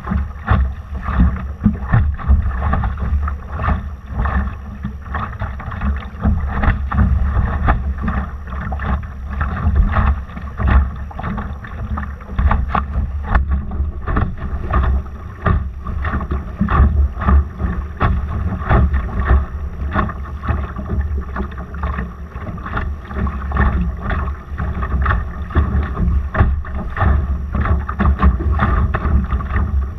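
Laser dinghy under sail: a constant low wind rumble on the microphone, with water splashing and slapping against the hull in quick, irregular strokes.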